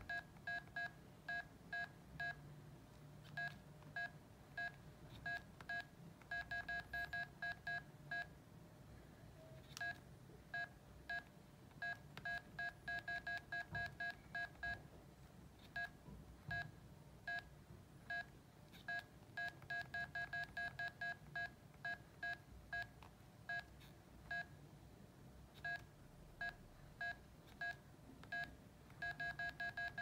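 Nokia 918 analog mobile phone beeping: short two-tone electronic beeps, some spaced a few a second and some in quick runs, in a pattern that repeats every several seconds like a ringing tone.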